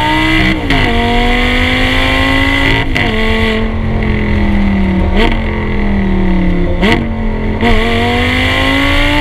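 Audi R8 V10 exhaust heard right at the tailpipe, running hard at speed. The note climbs with the revs and breaks at quick gear changes, about half a second and three seconds in. From about four to seven and a half seconds it is off the throttle, the revs sinking, with two short upward blips, then it pulls again and the note climbs near the end.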